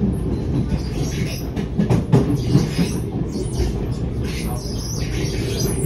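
Alstom Movia R151 MRT train running, heard from inside the car: a steady rumble with intermittent high squeaking, and a few louder knocks about two seconds in.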